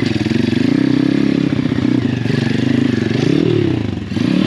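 Pit bike's swapped-in 150cc single-cylinder four-stroke engine revving up and down under throttle on rough ground, dipping and picking up again near the end.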